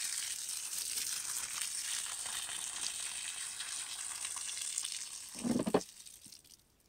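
Water pouring out of a plastic jug in a steady splashing hiss, running through a cupped hand and spattering below. A brief louder sound comes about five and a half seconds in, and then the pouring stops.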